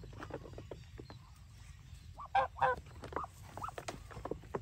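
Geese giving a few short honks about halfway through, with ducks among them, over many small scattered clicks and taps.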